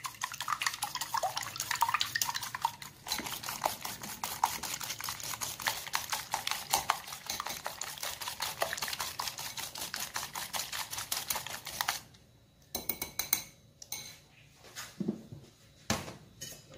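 Wire whisk beating egg whites in a ceramic bowl: a rapid, even clicking of the wires against the bowl for about twelve seconds, then it stops. A few separate clinks and knocks of dishes follow near the end.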